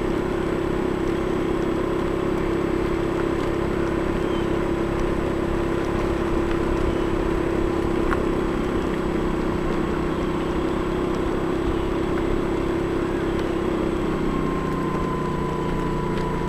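Small motor scooter's engine running at a steady low speed while riding along a paved road; its steady drone shifts in pitch about fourteen seconds in.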